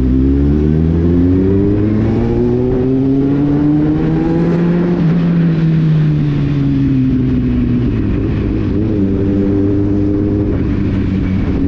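Kawasaki Z800 inline-four motorcycle engine under way, its pitch climbing smoothly for about five seconds under acceleration, then falling as the throttle eases, holding steady, and climbing again near the end.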